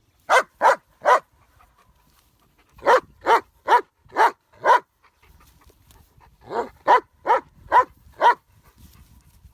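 A dog barking in three runs: three barks, a pause, five barks, another pause, then five more, each run at about two to three barks a second.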